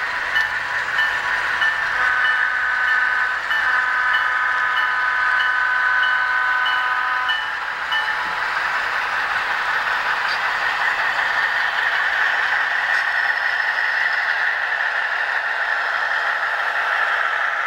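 Sound-equipped model diesel locomotive blowing its horn, several tones together, with a short break about two seconds in, while its bell rings about twice a second. Both stop about seven seconds in. Then comes a steady rolling rattle of model tank cars running past on the track.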